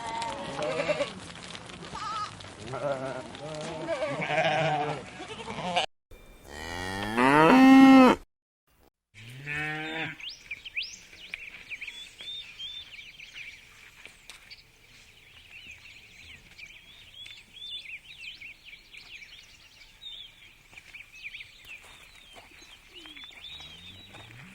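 Farm animal calls in separately cut clips: bleating for about the first six seconds, then a very loud single call rising in pitch and a shorter falling call, then many short high-pitched peeping chirps for the rest.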